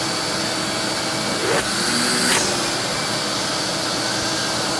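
Vacuum cleaner running steadily: a dense, even rushing noise with a thin, steady high-pitched whine on top.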